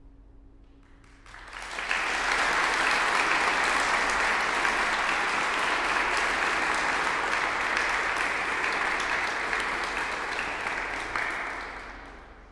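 Audience applauding. The clapping starts about a second in over a faint lingering note, holds steady, and fades away near the end.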